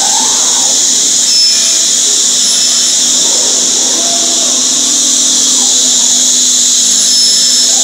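Bacci Artist six-axis CNC router's spindle running at high speed and cutting a wooden workpiece: a loud, steady, high-pitched whine with hiss that holds level throughout.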